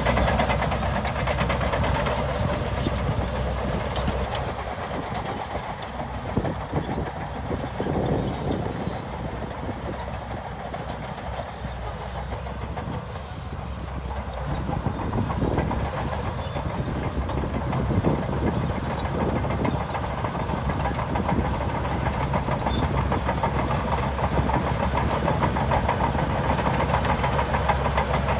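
Diesel engine of heavy earthmoving machinery running under load, with a clattering rhythm. It eases off for a few seconds in the middle and builds again, with a few short knocks.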